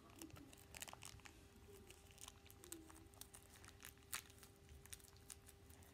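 Faint crinkling and tearing of a Shopkins blind basket's packaging being opened by hand: scattered soft crackles and clicks over a faint steady hum.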